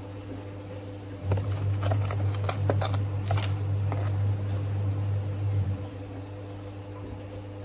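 Crinkling of a coffee bag and a wooden spoon scraping ground coffee into a moka pot's filter basket: a run of short crinkles and scrapes, over a low hum that comes in about a second in and drops out about six seconds in.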